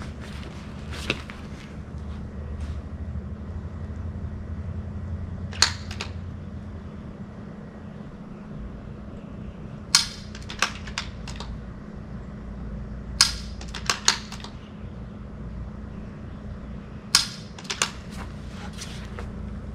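Rimfire .22 rifle shots, about four of them 3 to 4 seconds apart, each of the later ones followed within a second by one or two lighter clicks, over a steady low hum.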